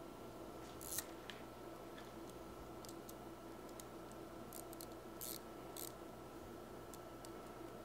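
Faint, scattered metallic clicks and taps of a small hand tool turning a screw on a milling fixture's clamp, over a steady low hum.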